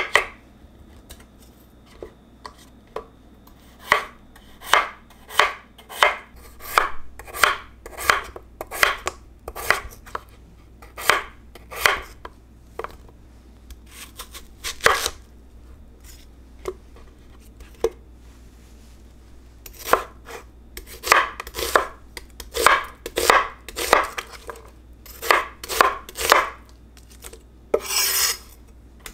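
Kitchen knife cutting through peeled potato and then onion on a wooden cutting board, each cut ending in a sharp knock of the blade on the board. The cuts come about one or two a second, with a lull in the middle and a longer scraping sound near the end.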